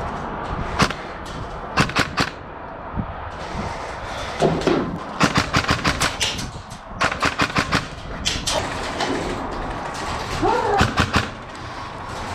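Airsoft guns firing: single sharp pops and fast strings of shots come and go over steady outdoor noise, with the quickest runs about halfway through.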